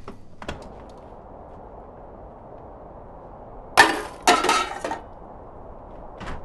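An empty tin can lands on a heap of empty tin cans, with two loud metallic crashes about half a second apart and a second of clattering and rattling. A short knock comes near the end as the cabin door shuts.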